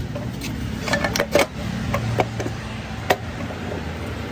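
A steady low hum with about half a dozen sharp clicks and knocks scattered through it, the loudest a little over a second in and again about three seconds in.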